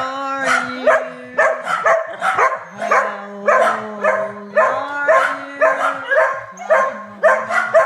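A dog barking and yipping in quick repeated calls, about two a second, each call bending up or down in pitch. Underneath is a steady low tone that holds a pitch for a second or two, then steps to another.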